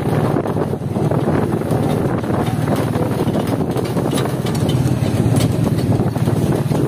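Vehicle engine running steadily with a low hum, under wind noise on the microphone.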